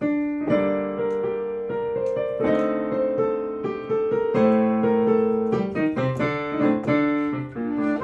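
Piano accompaniment playing the introduction to a clarinet piece: a slow run of chords and melody notes, each note struck and left ringing.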